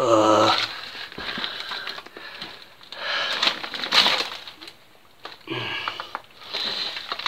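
A man's wordless grunts, one at the start and another about five and a half seconds in, with heavy breathing and rubbish crunching underfoot between, inside a small underground concrete tunnel.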